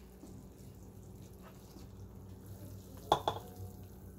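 A metal frying pan knocks twice against the rim of a ceramic serving bowl about three seconds in, two sharp clinks in quick succession, as cooked lamb tibsi is tipped out of it, over a low steady background hum.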